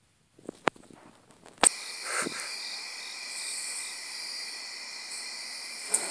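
A few clicks, then a sharp click about one and a half seconds in, after which a steady chorus of night insects starts, with several high steady trills layered together. Another sharp click comes near the end.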